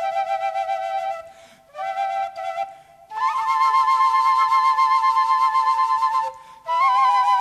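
Instrumental yaraví, a slow Andean melody, played on a flute: long held notes that waver in pitch, in phrases separated by short pauses about a second and a half in, about three seconds in, and near the end.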